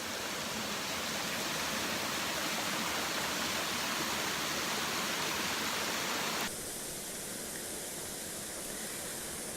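Waterfall's steady rush of falling water. About six and a half seconds in it drops suddenly to a quieter, duller rush.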